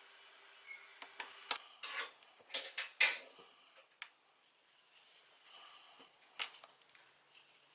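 Small hard parts and tools being handled on a workbench: a quick run of clicks, knocks and short scrapes, loudest about three seconds in, then one more click later.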